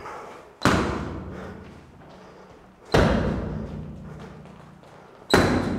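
Three loud gloved punches (crosses) land, about two and a half seconds apart, each echoing and fading in a large hall.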